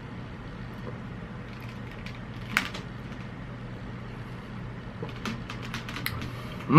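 A few soft clicks and gulps from drinking a protein shake, over a steady low hum.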